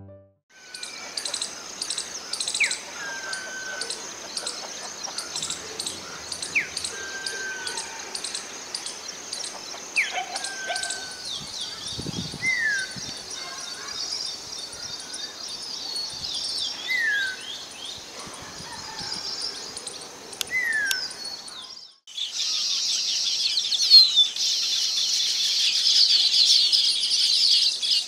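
Birdsong: one bird repeats a short downward-sliding whistle every couple of seconds over a steady high-pitched chirping. About three-quarters of the way through, it cuts to a louder, denser chorus of high chirps.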